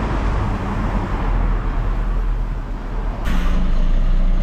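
Road traffic passing on a street: a steady engine and tyre rumble that grows louder about three seconds in, with a brief hiss at that moment.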